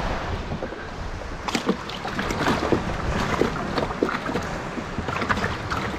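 Knocks, scrapes and squeaks from a plastic cooler being handled as fish are put into it, over steady surf and wind noise.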